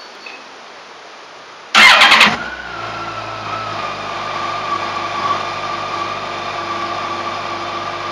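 2015 Yamaha FJR1300's inline-four engine on its stock exhaust being cold-started: after nearly two seconds of quiet the starter cranks and the engine catches with a short, loud burst. It then settles into a steady idle with a high tone that eases slightly in pitch.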